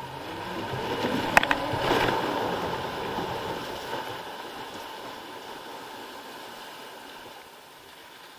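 Flume ride boat going down the drop and hitting the water: a rush of water and wind builds to a loud splash about two seconds in, with a sharp clank just before it. The rush of water then fades steadily as the boat runs on along the channel.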